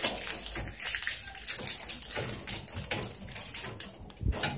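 Plastic clicks and rustling from the front cover of a Sharp AR-6020-series copier being unlatched and swung open, with a heavier knock near the end.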